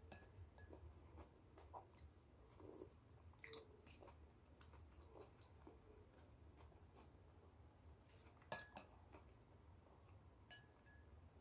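Faint eating sounds: quiet chewing with scattered soft clicks of plastic chopsticks against a bowl, the sharpest click about eight and a half seconds in.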